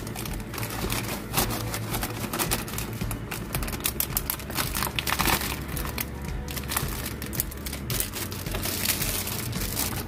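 A plastic zipper bag crinkling and rustling in quick, irregular clicks as gloved hands fill it with fresh wet sea mustard and press the seal shut, over background music.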